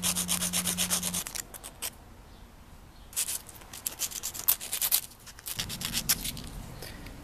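Metal screwdriver blade being rubbed by hand on sandpaper to shape its tip, in quick back-and-forth strokes of about eight a second, in two bursts with a pause between. A low steady hum sounds under the first second.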